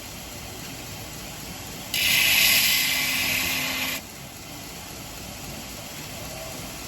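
Belt sharpener running steadily, with a stainless cleaver blade pressed to its fresh abrasive belt for a single pass of about two seconds in the middle: a loud, high grinding hiss that stops abruptly.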